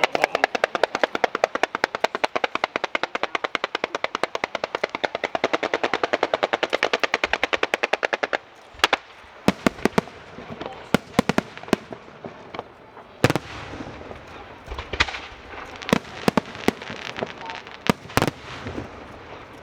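Fireworks going off. A rapid, even string of sharp cracks, about eight a second, runs for about eight seconds and stops abruptly. Scattered single bangs and crackles follow.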